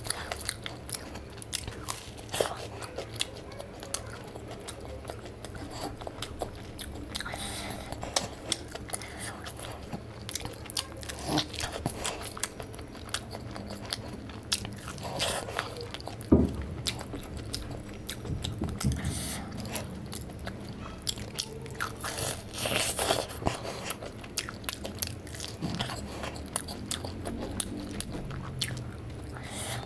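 Close-miked eating: a fried snack in sauce bitten and chewed, with crisp crunches, the sharpest about halfway through.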